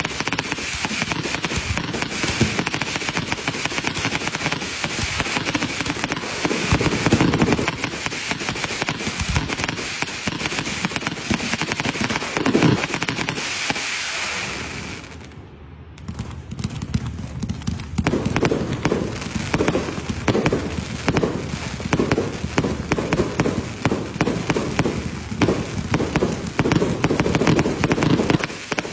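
Fireworks display going off: shells launching and bursting amid continuous crackling and popping, over a steady hiss for roughly the first half. After a short lull about halfway through, a fast run of close-spaced bangs follows.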